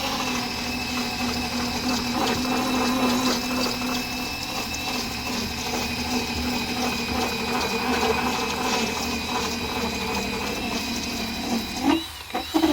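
Power drill running steadily with an even whine while spinning a wheel against the paint to strip adhesive residue. It slows and picks up again near the end.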